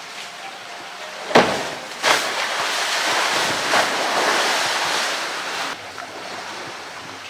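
Polar bear splashing into pool water with a blue plastic barrel. There are two hard splashes about a second and a half and two seconds in, then a few seconds of churning, sloshing water that cuts off suddenly.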